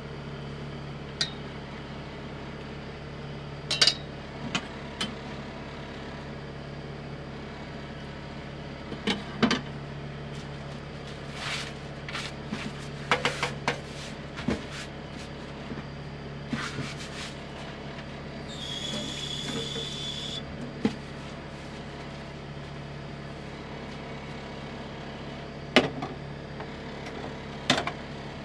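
Kitchen handling sounds: scattered clinks and knocks of utensils against a pot and a wooden cutting board, a cluster of them midway and two sharp knocks near the end. A brief hiss comes about two-thirds through. Underneath is a steady low hum from the running induction hob.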